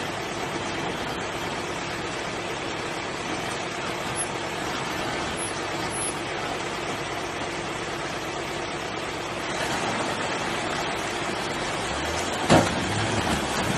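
Volkswagen Amarok pickup's engine running steadily at low revs as the truck crawls down a deep, narrow rut, under a steady rushing noise. One sharp thump comes near the end.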